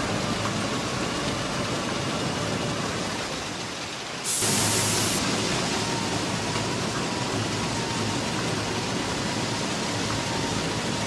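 Plasser & Theurer PM 1000 URM track formation rehabilitation machine running, a steady noisy rush of machinery and moving ballast. A little after four seconds in the sound jumps louder, with a brief hiss lasting about a second.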